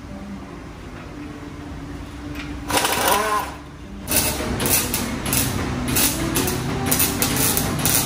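An impact wrench undoing the downpipe bolts runs in one short burst about three seconds in. From about four seconds on comes a sharp, irregular crackle of welding on the exhaust.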